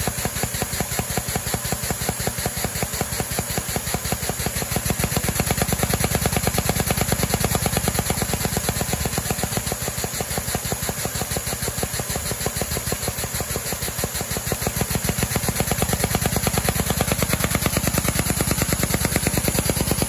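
Lego vacuum engine running, its plastic parts clattering in a rapid, even rhythm over the steady rush of the vacuum cleaner suction that drives it.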